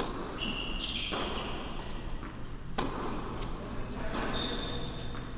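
Tennis ball struck by racquets in a rally that opens with a serve: a sharp hit at the start, another about a second in and a louder one near three seconds, echoing in the large indoor hall. Short high squeaks of tennis shoes on the hard court come in between, over a steady low hum.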